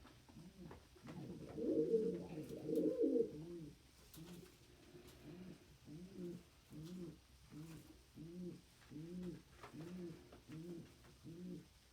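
Domestic pigeons cooing: a steady run of low, rising-and-falling coos, a little over two a second, with a louder stretch of several birds cooing over each other between about one and four seconds in.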